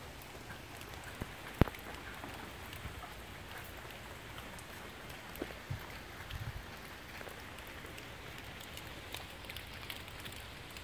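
Steady rain pattering on leaves and woodland debris, with many small scattered drips. A single sharp knock about one and a half seconds in is the loudest sound, and a few soft low thumps follow a few seconds later.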